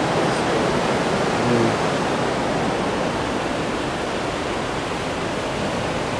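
Water of the Falls of Dochart rushing over rocky rapids: a steady, loud hiss of white water.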